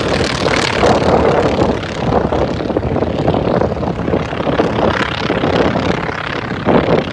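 Propeller airplane engine drone, loud and steady, with a brief swell near the end.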